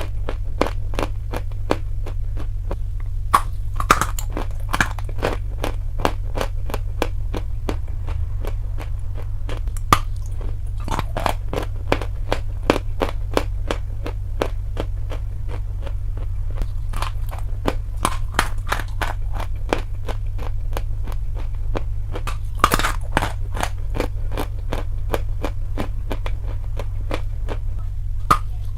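Dry chalk being bitten and chewed: a steady run of crisp crunches and cracks, about three a second, with a few louder snaps, over a steady low hum.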